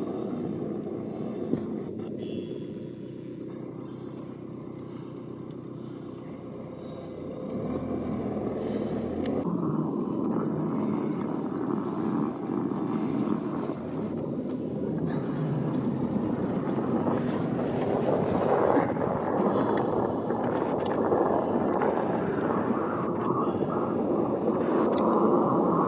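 A vehicle's engine running, steady at first, then louder and rougher from about eight seconds in.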